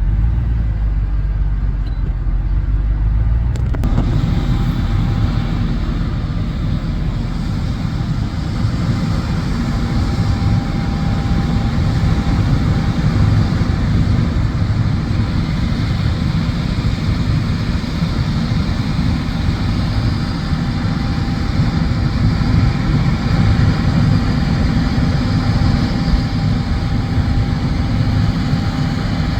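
John Deere S780 combine harvester running steadily while harvesting wheat: a loud, continuous machine drone with most of its weight low. About four seconds in, a deep rumble gives way to a fuller, broader noise that holds steady.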